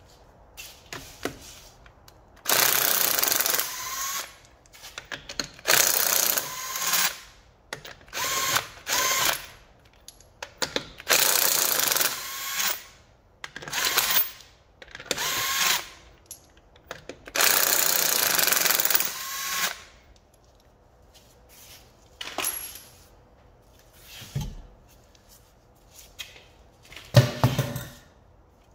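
Cordless impact wrench hammering the wheel nuts loose in about nine bursts of one to two seconds, each ending as the motor winds down. A couple of dull knocks come near the end.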